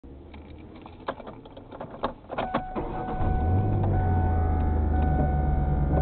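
A few sharp clicks and knocks inside a parked car, then about three seconds in a steady low mechanical hum starts and holds.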